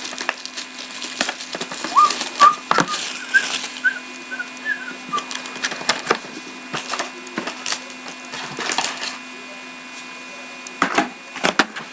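Cellophane wrap and cardboard of a hockey card box being torn open and handled: crackling with many scattered sharp clicks and taps. A run of short high chirps comes about two seconds in, over a steady low hum.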